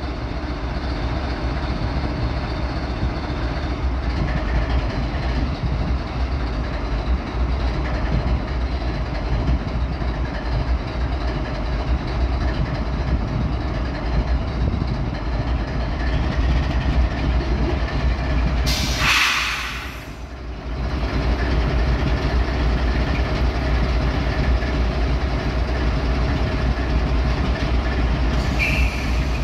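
GE ES44AC diesel-electric locomotive's V12 GEVO engine idling with a steady low rumble. A short, loud hiss breaks in about two-thirds of the way through, and another hiss starts near the end.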